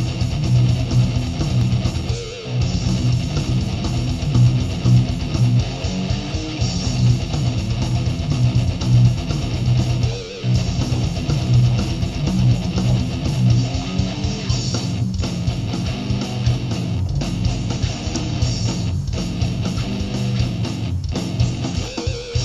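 Electric guitar playing a fast, rhythmic riff, with short breaks about two seconds in and about ten seconds in.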